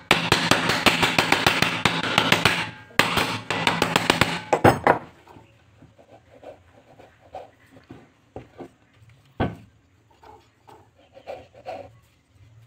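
Rapid, loud tapping and rattling of hand tools on an electric planer's pulley housing clamped in a bench vise, breaking off briefly about three seconds in and ending with a sharp knock about five seconds in. After that there are only quiet clicks of parts being handled, with one knock just after the middle.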